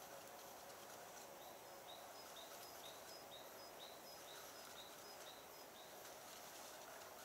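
Quiet riverbank ambience with a bird calling a series of short, high notes, about two a second, for several seconds.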